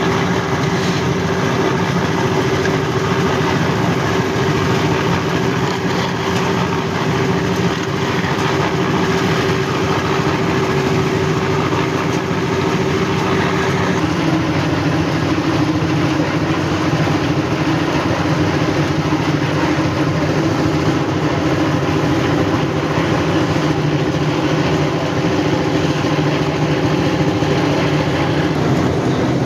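Engine of heavy construction machinery running steadily on a concrete paving job; its note steps down a little about halfway through.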